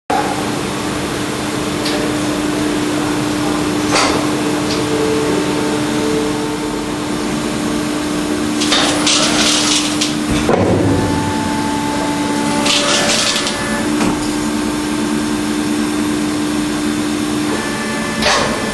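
GF AgieCharmilles HPM 1000U milling machine running through a pallet change: a steady machine hum with a constant tone, two bursts of hissing about halfway through, and a low clunk between them.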